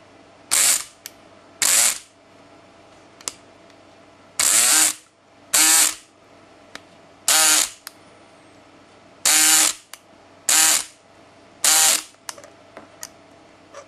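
Electric lock pick gun buzzing in about eight short bursts of roughly half a second each, its needle pick snapping against the pin stack of a Master No. 575 padlock while it is being picked open.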